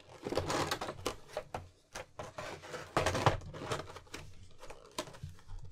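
Clear vacuum-formed plastic figure tray being pried open by hand: irregular clicks and crackling rustles of the stiff plastic, the tray stuck shut.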